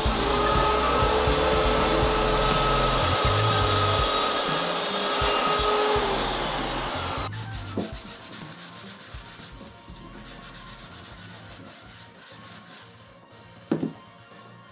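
A sliding compound miter saw runs with a steady whine while cutting wooden slats into short pieces for about seven seconds. Then the sound switches suddenly to the much quieter scratch of a hand sanding block rubbed back and forth along a cut wooden slat.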